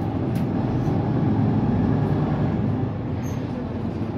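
Mercedes-Benz Citaro C2 city bus's OM936 7.7-litre six-cylinder diesel running as the bus drives, a steady low rumble. It swells about a second in and eases again near three seconds.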